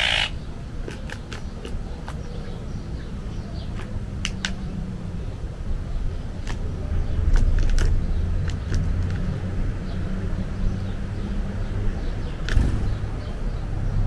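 Low steady rumble and hum with scattered short, sharp clicks.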